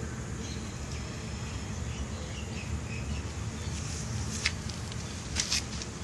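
Outdoor background sound: a steady low rumble and hiss, with faint high chirps in the first half and a few sharp clicks in the second half.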